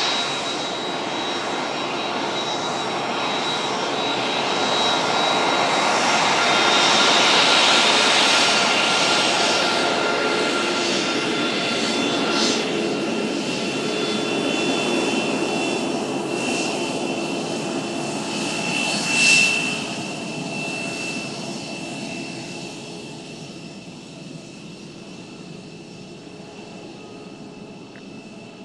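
Embraer KC-390's twin turbofan jet engines running as the aircraft passes: a roar with steady high whining tones that swells to a peak about a quarter of the way in, then slowly fades, with a brief louder burst about two-thirds through.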